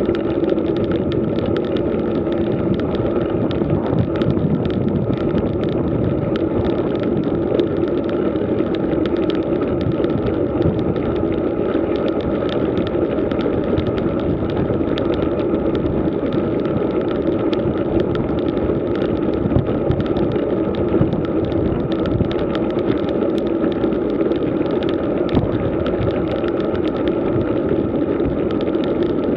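Road bike rolling at around 25 km/h over rough, patchy asphalt: a steady rush of wind and tyre noise with constant small rattles and clicks.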